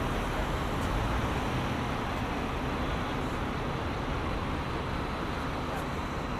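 Steady city road traffic: motor vehicles running past on a busy street.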